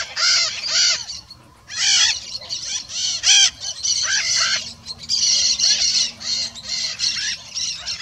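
Red-shouldered macaws (maracanã-pequena) calling in a racket: a quick run of short, shrill squawks repeated over and over, with a brief lull about a second and a half in.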